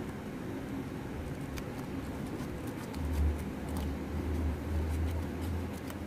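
Scissors snipping paper, as scattered small sharp clicks with light paper rustle, over a steady background hum. A deep low rumble comes in about halfway through and lasts almost three seconds.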